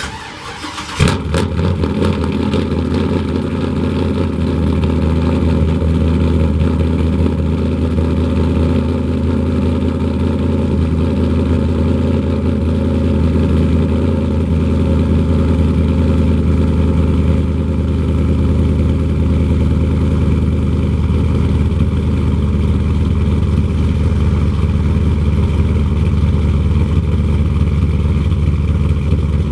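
Cammed Chevrolet Silverado V8 (Brian Tooley Racing stage 4 cam, long-tube headers, 3-inch true duals with X-pipe and Black Widow Venom 250 mufflers) on a cold start. It cranks and catches about a second in, loudest at the moment it fires, then settles into a steady idle.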